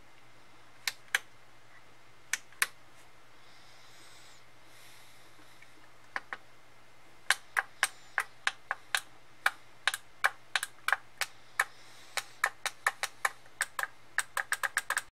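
Sharp clicks from the buttons of a repaired solar tracker controller being pressed and its output relays switching. A few scattered clicks, some in close pairs, then from about halfway a quick run of clicks that speeds up near the end.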